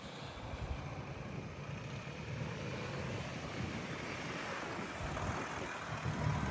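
A vehicle's low rumble mixed with wind noise on the microphone, slowly growing louder.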